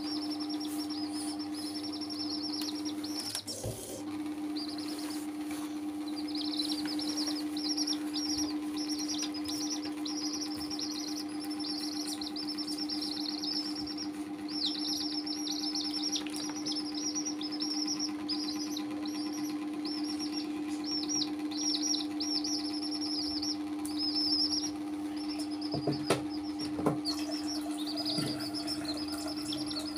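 Baby chicks peeping: a long run of rapid, high-pitched peeps with a few short breaks, over a steady low hum. A couple of soft knocks sound near the end.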